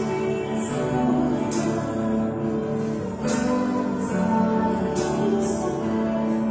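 Live church band playing held chords, with piano, bass and guitars, and cymbal strokes ringing out about six times. Any singing is faint.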